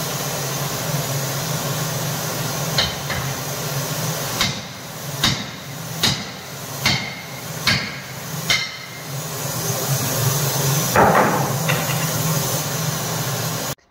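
Hammer blows on a solid steel drift rod driven down the tubes of a VW Beetle front axle beam, knocking out the heated collars that hold the leaf springs. There are about eight sharp metallic strikes, under a second apart, then a louder clash about eleven seconds in, over a steady background hum.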